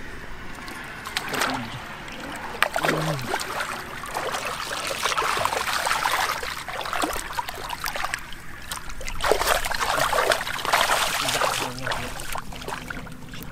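Hands splashing and sloshing through shallow muddy water and wet mud while groping for fish, in irregular bursts.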